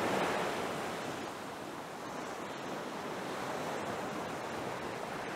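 Sea water washing and churning: a steady rushing noise, a little louder at the start and settling after a second or two.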